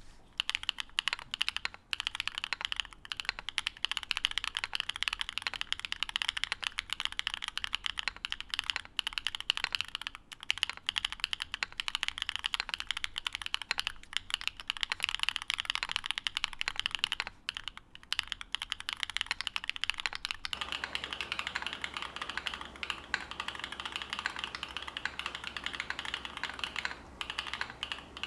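Continuous fast typing on a Qwertykeys NEO70 custom mechanical keyboard with FOD Lucky linear switches, polycarbonate housings, a carbon-fibre plate, PCB gasket mount and full foam. Keystrokes come in a dense, unbroken stream. About twenty seconds in, the recording changes to the camera's microphone and a low steady background hum comes in under the key sounds.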